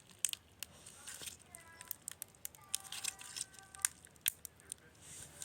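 Slime being squeezed and stretched in the hands, giving a run of irregular sharp clicks and small pops.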